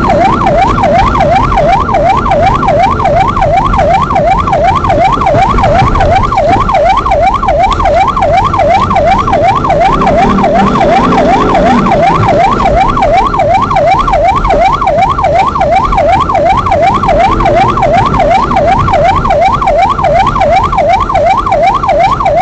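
Fast yelp siren of the rally's stage-check car, sweeping up and down about three times a second without a break, over the car's engine and tyre rumble.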